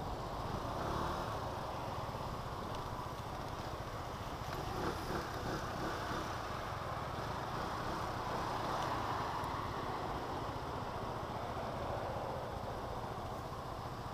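SYM scooter's engine running at low speed in slow traffic, under a steady rush of wind and road noise.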